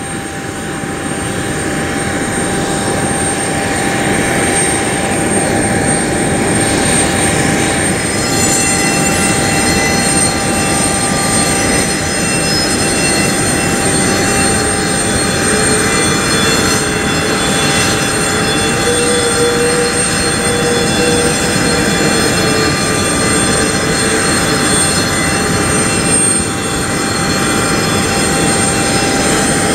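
Embraer ERJ-175's GE CF34 turbofan jet engine starting up: a steady rush that builds over the first few seconds. About eight seconds in it is joined by several high, steady whining tones, and midway a middle tone creeps up in pitch as the engine spools.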